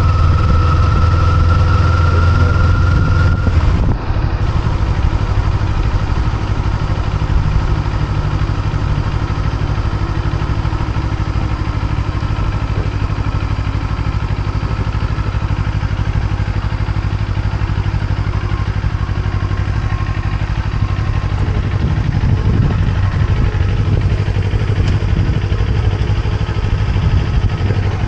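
Kawasaki Eliminator SE motorcycle engine running steadily. A faint whine rises in pitch over the first few seconds, then stops.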